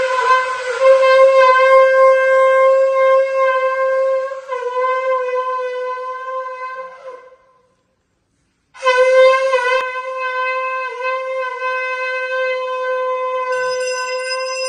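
Conch shell (shankh) blown in two long blasts at one steady pitch, sounded as part of Hindu worship at a home shrine. The first blast fades out about halfway through, and after a second's pause the second blast starts and holds on.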